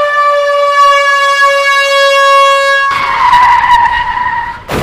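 Battery-powered toy steam locomotive sounding its electronic train whistle: one long, slightly falling tone for about three seconds, then a hissier, falling whistle sound that breaks off shortly before the end.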